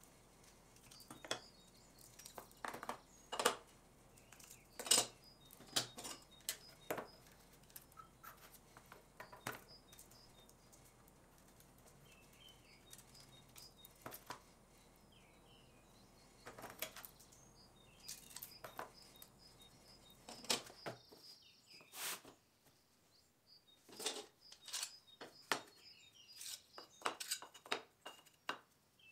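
Irregular clinks and taps of glass pieces and hand tools being handled on a workbench during stained glass repair work.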